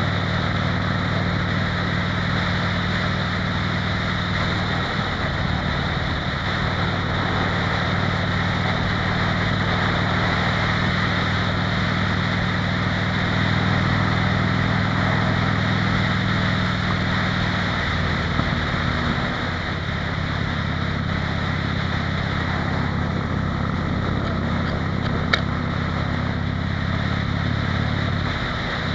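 Harley-Davidson motorcycle's V-twin engine running steadily at road speed, with wind rushing over the microphone. The engine note shifts briefly about five seconds in, again a little past halfway, and just before the end, and there is one sharp click near the end.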